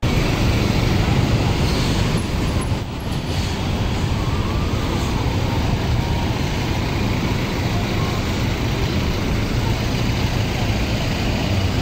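Steady road-traffic noise of a busy city street: a continuous rumble of passing vehicles that holds level throughout.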